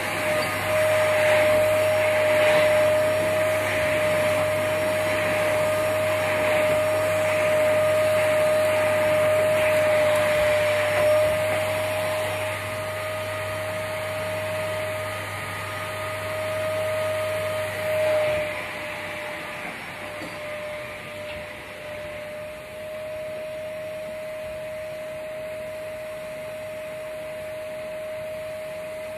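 Canister vacuum cleaner running on carpet with a steady whine. It grows fainter after about twelve seconds and fainter again a little past halfway, but keeps running.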